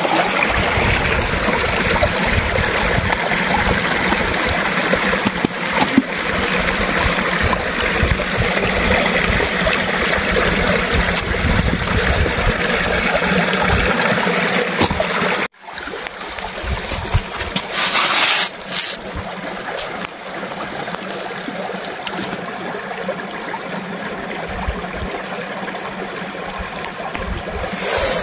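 Shallow stream water running steadily over rocks. About halfway through the sound cuts suddenly and comes back quieter, with a short hiss about two-thirds through.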